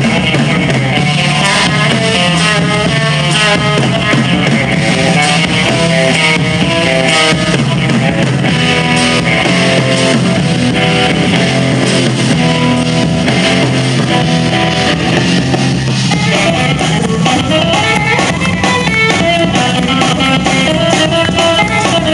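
Live band music led by an electric guitar, playing continuously under steady low bass notes, with no singing.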